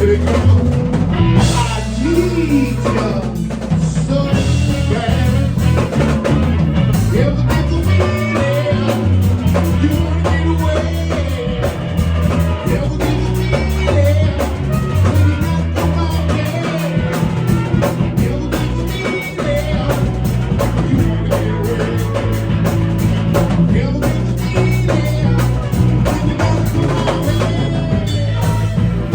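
Rock band playing: drum kit keeping a busy beat over a changing bass line, with some singing.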